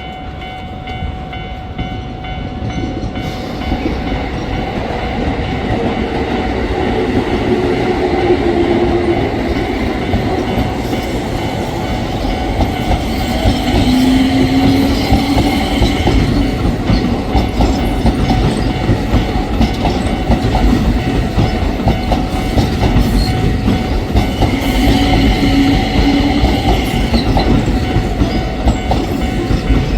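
Keio Line electric train running through a level crossing: a loud, rising rumble with the clickety-clack of wheels over rail joints and a motor whine that glides in pitch several times. Steady ringing tones, typical of the crossing's warning alarm, sound throughout.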